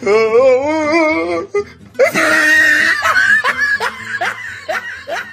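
A person laughing: a long wavering laugh, then a louder breathy burst about two seconds in, followed by short bursts of laughter.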